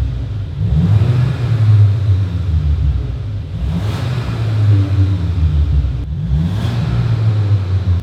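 VW Golf 8 GTI's turbocharged 2.0-litre four-cylinder, fitted with a cat-back valvetronic exhaust, being revved while standing still. It idles and is blipped in short rises in pitch, about a second in, around four seconds and again near six and a half seconds.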